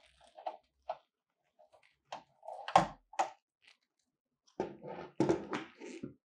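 Gloved hands handling a ring light's plastic mounting bracket and a gooseneck holder arm: glove creaks and small clicks, a sharp knock almost three seconds in, then a denser stretch of rubbing and knocking near the end.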